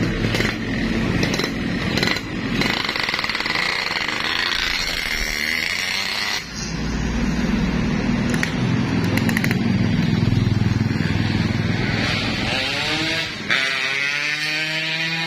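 Yamaha RX-King's 135 cc two-stroke single-cylinder engine revving and pulling away on its first test run after a seized engine was repaired. The pitch climbs twice near the end as the bike accelerates.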